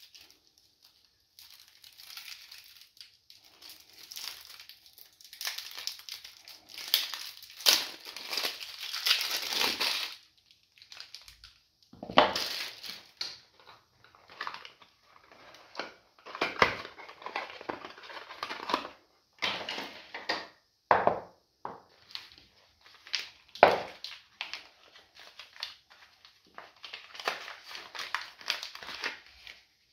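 Plastic soap wrappers being slit and peeled off bars of soap: crinkling and crackling in irregular bursts with short pauses between them.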